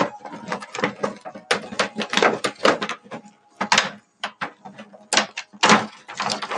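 Clear plastic packaging crackling and rattling as small plastic ornaments are handled and pulled out of it: a quick run of irregular clatters and crinkles.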